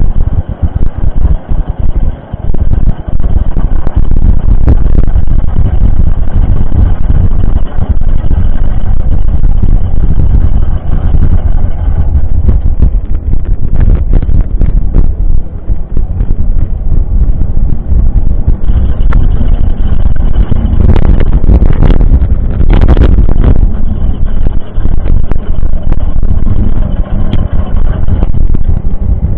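Heavy wind buffeting on the microphone of a camera riding along on a mountain bike, with a moment of louder rattling and crunching about three quarters of the way through.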